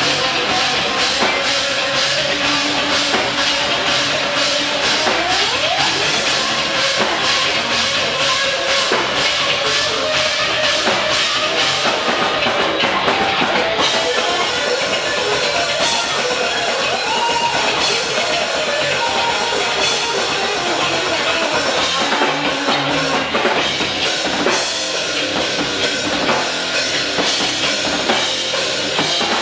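A rock band playing live, loud: a fast, driving drum kit with bass drum under distorted electric guitar, in a heavy rock or metal style.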